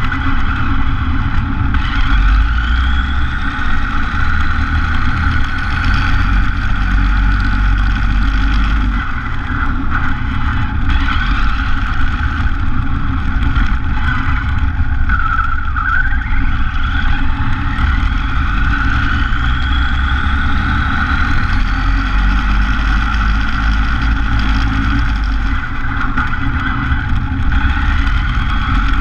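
Radio-controlled car driving on pavement, heard from a camera mounted on the car. There is a constant rumble of tyres and chassis on the road, and a motor and gear whine that rises in pitch several times as the car speeds up.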